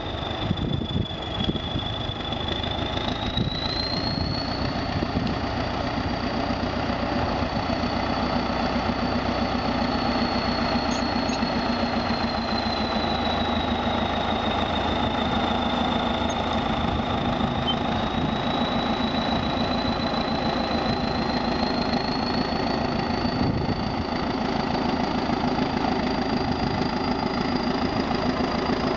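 Diesel engine of a Soviet ChTZ T-130/T-170-series crawler bulldozer running steadily as the machine works, pushing soil with its blade. A thin high whine drifts slowly up and down in pitch over the engine.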